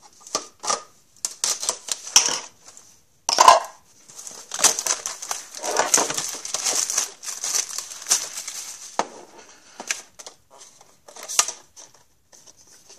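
Plastic shrink-wrap crinkling and tearing as a metal hockey-card tin is opened, with clicks and light metallic clanks from the tin and the card packs being handled. The loudest sound is a sharp knock about three and a half seconds in.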